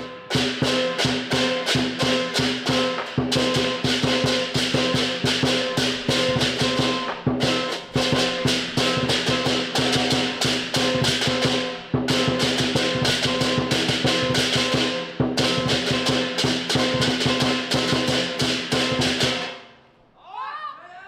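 Southern lion dance percussion (big drum, gong and crash cymbals) playing a fast, dense rhythm, with a few brief breaks. It stops about a second and a half before the end.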